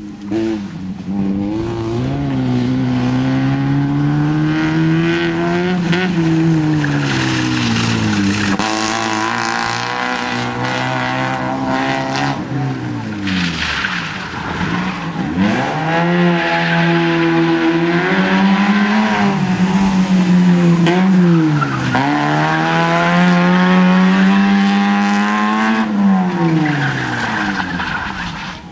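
Fiat Cinquecento rally car's engine revving hard as it accelerates through the gears, its pitch climbing and dropping several times at shifts and lifts, with tyres skidding on loose gravel through corners.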